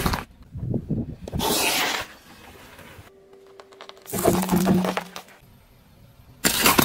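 A car tyre rolling over and crushing objects on asphalt, in a string of separate crunching and cracking bursts. Hard lollipops crack under the tyre a little past the middle, and a plate of painted eggs starts breaking near the end.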